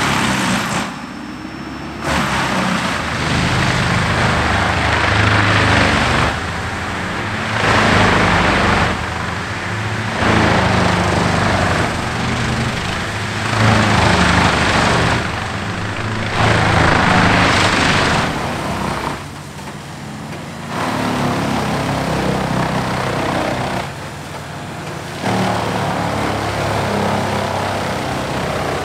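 Bandit whole tree chippers chipping whole trees: diesel engines running hard under load, with the hissing rush of wood being chipped and blown out. The sound shifts abruptly every few seconds from one machine to the next.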